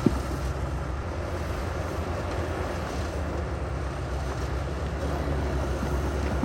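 Heavy construction machinery's diesel engine running steadily with a low rumble, with a single sharp knock right at the start.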